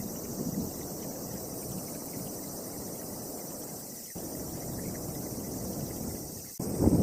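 Wind blowing and buffeting the microphone with a low rumble, over a steady high chirring of insects. The sound jumps louder abruptly about four seconds in and again near the end.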